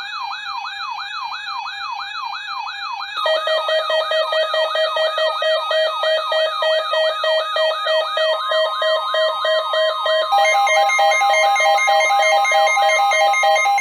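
Electronic siren-like alert signal built from layered tones: a falling whoop repeating about three times a second over a steady tone, joined about three seconds in by a louder pulsing lower tone, with further steady tones stacked on near the end.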